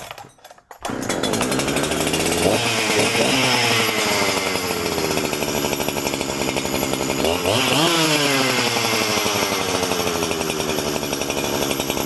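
Huyosen 6524 two-stroke chainsaw, a Husqvarna 365 clone, starting on the pull cord and catching about a second in. It runs steadily, and is revved up sharply twice, each time sinking slowly back toward idle.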